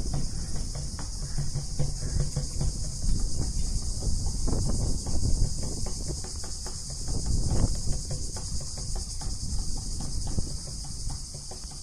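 A chorus of insects keeps up a steady high-pitched drone. Under it, a low uneven rumble of wind buffets the microphone.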